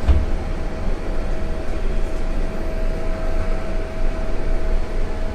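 Toshiba passenger elevator running: a steady hum and a low rumble, after a short knock at the very start.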